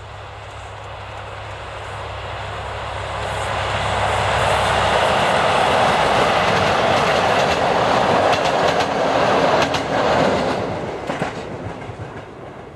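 SU45 diesel locomotive passing at speed with a rake of double-deck passenger coaches: a low engine drone as it approaches, growing loud as the train goes by, with wheels clicking over the rail joints as the coaches pass. The sound fades away near the end.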